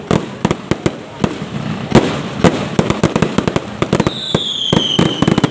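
Fireworks going off: rapid, irregular bangs and crackles, with a falling whistle about four seconds in.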